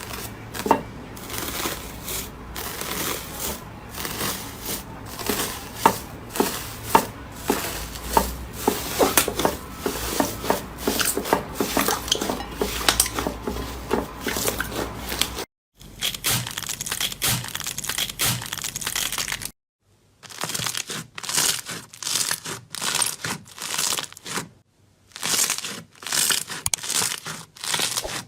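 Slime being squeezed and stretched by hand, giving dense crackling and popping clicks. It breaks off into short silences about halfway through and twice more near the end, where one clip gives way to the next.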